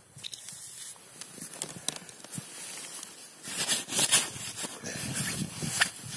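Snow crunching and scraping on the ice as a hand and feet move through it, with scattered sharp clicks and a louder stretch of crunching about three and a half seconds in.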